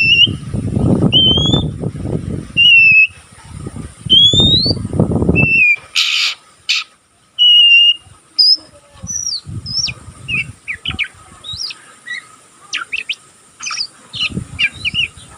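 Young oriental magpie-robin giving its 'ngeriwik' chatter, the practice calling of a juvenile bird: short whistled notes, many rising, about one a second, over loud low rustling for the first few seconds. After a brief noisy burst, the notes turn into quicker, short, scratchy chirps.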